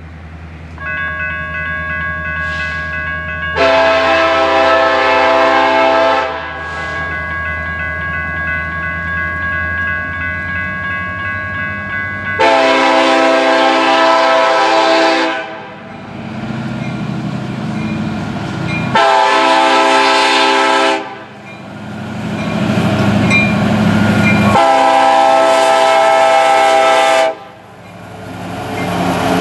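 Kansas City Southern EMD SD70ACe diesel locomotive's multi-chime air horn blowing the grade-crossing signal as the train approaches: two long blasts, a short one, then a long one, over the low rumble of the diesel engines. The crossing's warning bell starts ringing about a second in.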